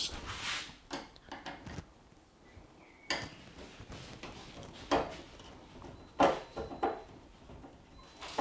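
Scattered clicks, knocks and a scrape of a screwdriver and screws being handled against the metal cabinet while the front top screws of a washing machine are taken out.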